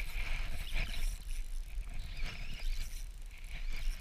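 Shimano Stradic spinning reel being cranked during a lure retrieve, its whir and clicking mixed with a steady rumble of wind on the camera microphone.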